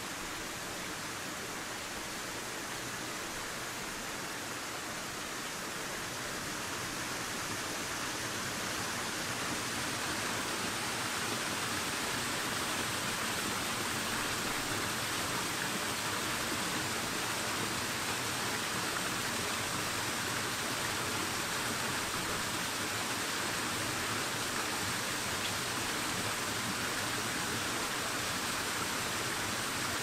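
Small freshwater waterfall and stream splashing over rocks: a steady rush of water that grows somewhat louder over the first ten seconds or so, then holds even.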